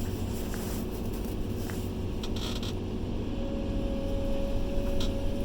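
Komatsu PC210 excavator's diesel engine running steadily under hydraulic load while the boom holds up a heavy limb. A steady higher whine joins about three seconds in.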